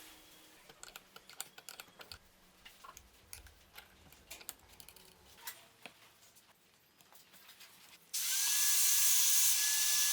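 Scattered light clicks and knocks of tools and wood being handled, then about eight seconds in a power tool starts abruptly and runs steadily and loudly, with a steady high whine over a hiss, until it cuts off.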